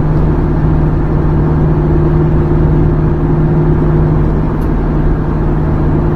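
Minibus engine running at a steady cruising speed with road noise, heard from inside the cabin as an even, unchanging hum.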